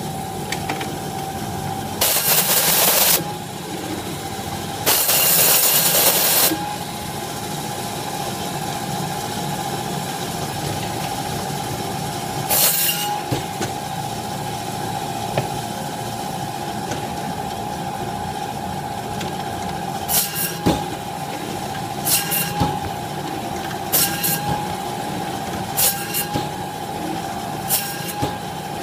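Meat band saw running with a steady whine while its blade cuts through a beef short loin, bone included. Two long rasping cuts come in the first few seconds. From about two-thirds of the way in, short rasping cuts come about every two seconds as thin T-bone and porterhouse steaks are sliced off, and the whine dips briefly under each cut.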